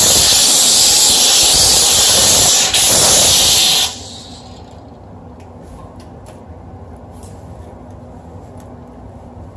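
HomeRight SteamMachine steam cleaner jetting steam in a loud, steady hiss, broken for a moment, then cut off about four seconds in. What follows is a much quieter low rumble with a few faint clicks.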